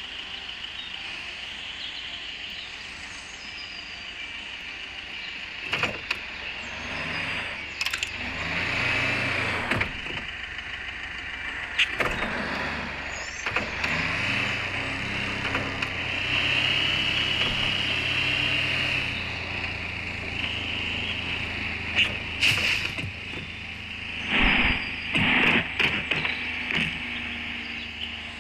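4x4 vehicle driving off-road, its engine running steadily, with several sharp knocks scattered through, the loudest cluster near the end.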